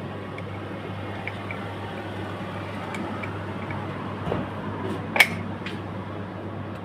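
Hands and tools working on an electric bike's wheel: scattered light clicks, a soft thud, and one sharp click about five seconds in, over a steady low hum.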